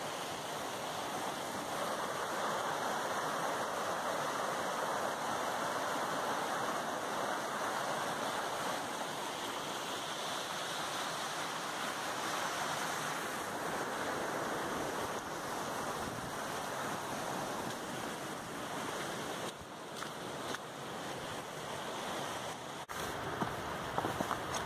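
Mountain beck in spate, steady rushing of water over rocks. A few footsteps on the path begin near the end.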